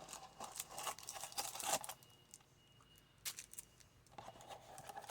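Hands opening a cardboard trading-card box: faint tearing and crinkling, busiest in the first two seconds, then a few scattered rustles.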